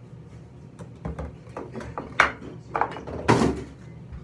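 Hair supplies being handled: a hairbrush and bottles knocking, making a handful of sharp knocks and clatters, the loudest and longest near the end.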